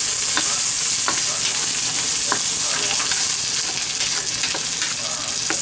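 Spam and sweet corn sizzling steadily as they stir-fry in a hot pan, with a utensil clicking and scraping against the pan now and then.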